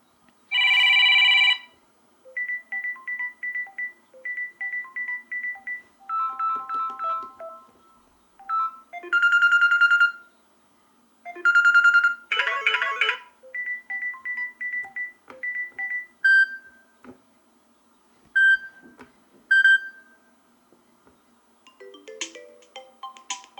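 Samsung Galaxy M12 built-in ringtones played in turn: several short electronic melodies of quick beeping notes and bright chimes, each stopping before the next begins.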